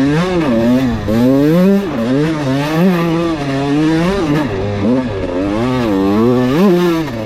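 Kawasaki KX125 two-stroke dirt bike engine revving up and down over and over, its pitch rising and falling every second or so as the throttle is worked.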